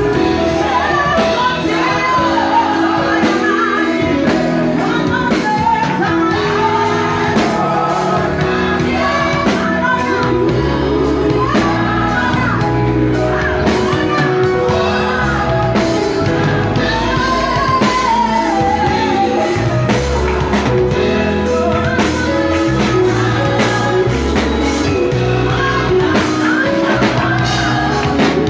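Live gospel praise music: several singers on microphones singing over a band, with a drum kit keeping a steady beat.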